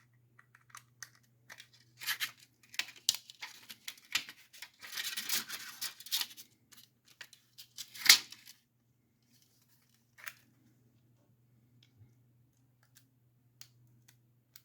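Small clicks and scraping of a screwdriver and metal drive bracket as mounting screws are driven into an SSD, with a sharp knock about eight seconds in. After that only a few faint ticks over a faint steady hum.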